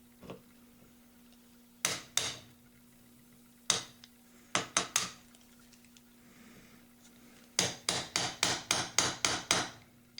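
A wood chisel being struck to pare glued-in dowel plugs flush with a wooden gun stock: a few separate sharp taps, then a quick run of about ten taps near the end.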